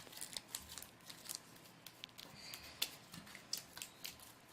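Homemade glue-and-borax slime being squeezed and pressed in the hands, giving irregular small clicks and pops as air pockets burst.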